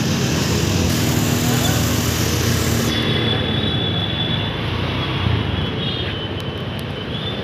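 Busy market street ambience: motorcycle and scooter engines running and passing close by, over steady traffic noise and crowd chatter.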